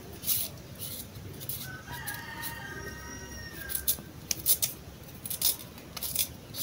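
A small kitchen knife scraping and slicing the peel off a cassava root in quick, repeated strokes. A rooster crows once, about two seconds in, fainter than the knife strokes.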